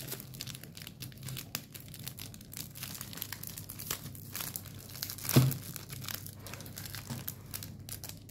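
Clear plastic wrapping around a manga volume crinkling and crackling as hands handle it and work it loose, with one louder brief sound about five seconds in.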